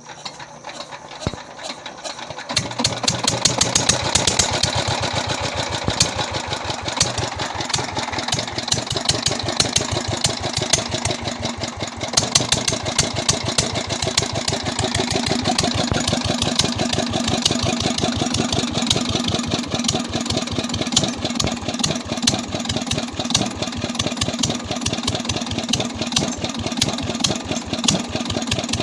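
A KAM SD 18 HP diesel engine, freshly rebuilt after seizing from lack of oil, starts about two seconds in and then runs with a steady, rapid beat.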